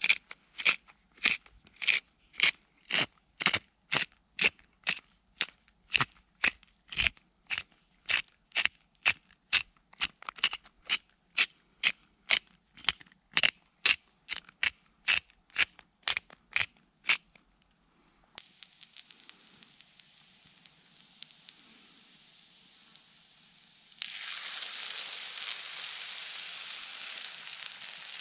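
Wooden hand spice mill being twisted to grind seasoning, crunching about twice a second for around seventeen seconds. About four seconds before the end, oil in a pan over a wood fire starts sizzling steadily.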